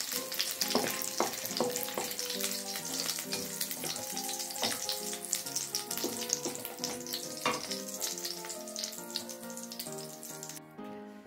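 Hot oil sizzling in a stainless wok as fried shallots, garlic, galangal and kencur are scooped out with a metal slotted spatula, with small ticks and scrapes of the spatula against the pan. The sizzle stops near the end.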